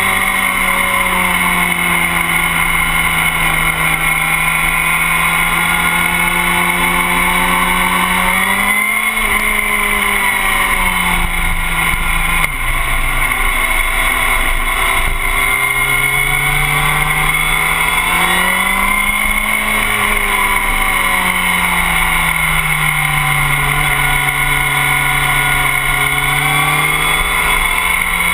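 Motorcycle engine running hard on a race track, its note climbing as it accelerates and easing off between, twice over, with a short break in level about twelve seconds in. Wind rushes steadily underneath.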